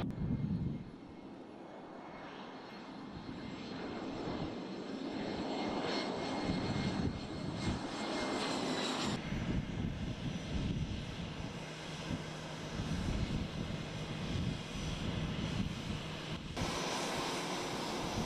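Jet airliner's turbofan engines running on the runway: a steady engine rumble with a faint high whine. The sound changes abruptly about halfway through and again near the end, where shots are cut together.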